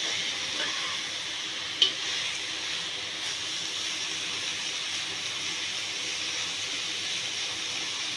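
Cabbage and pointed gourd sizzling as they are stir-fried in a pan: a steady hiss, with one sharp clink of the stirring utensil against the pan about two seconds in.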